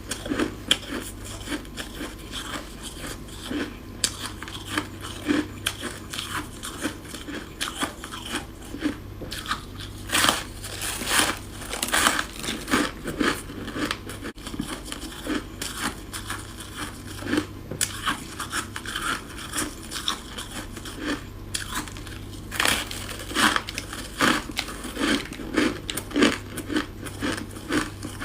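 Close-up biting and chewing of chunks of freezer frost: dense, irregular crunching and crackling, coming in louder clusters of bites between quieter chewing.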